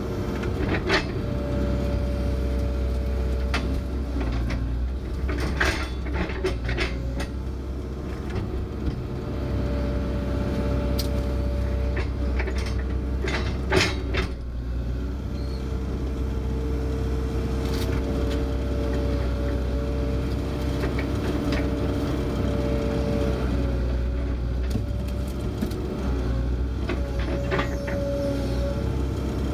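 Kobelco SK160 excavator heard from inside its cab: the diesel engine runs steadily while a hydraulic whine comes and goes as the boom and bucket move. Sharp clanks and knocks sound now and then as the bucket and thumb work the old railroad ties, the loudest about halfway through.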